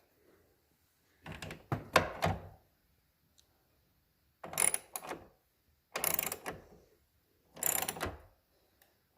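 Ratchet wrench on a 10 mm socket clicking in four short bursts, snugging up the bolts of a loose aftermarket side mirror that vibrates.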